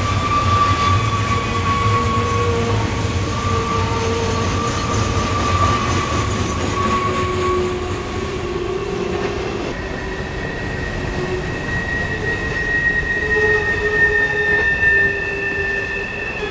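Freight cars of a Norfolk Southern manifest train rolling past close by, their steel wheels rumbling on the rail. A thin, high wheel squeal runs over the rumble and moves to a higher pitch about ten seconds in.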